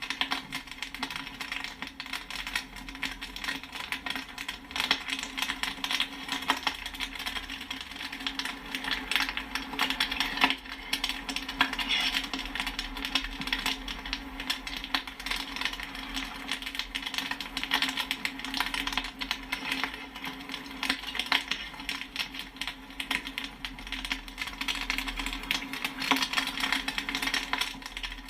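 Popcorn kernels popping rapidly and continuously, the many small pops and pings running together densely over a steady low hum.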